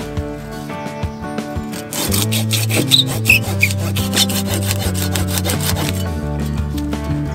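Folding hand saw cutting through a small log in repeated back-and-forth strokes, starting about two seconds in.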